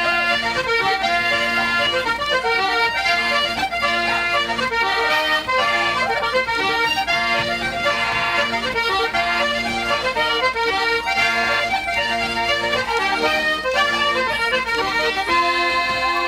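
Irish traditional tune played on accordion: quick runs of notes over steady held chords, the music changing about a second before the end.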